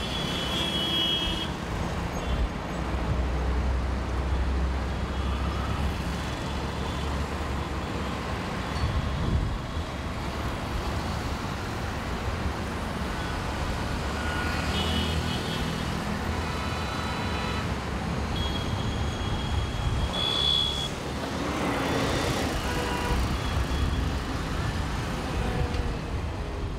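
Steady rumble of heavy city road traffic: buses, cars, auto-rickshaws and motorbikes running past. A few brief high-pitched tones sound now and then.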